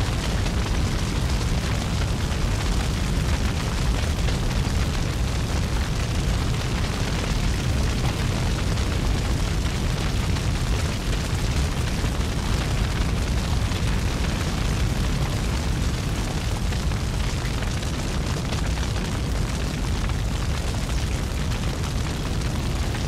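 Steady, deep roar of a large wildfire burning, unbroken throughout, with a rushing hiss above the rumble.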